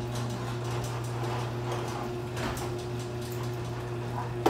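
A steady low hum runs throughout, with soft scattered knocks of footsteps on a concrete floor and a sharp knock right at the end as a chainsaw is lifted off the floor.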